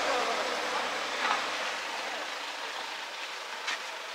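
Water spraying from a garden hose onto dry soil beds: a steady hiss.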